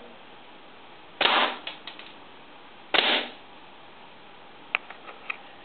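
Airsoft G3 with an experimental HPA (high-pressure air) engine firing on a test bench: two loud, sharp blasts of compressed air about 1.7 seconds apart, each trailing off briefly, then a few light clicks near the end.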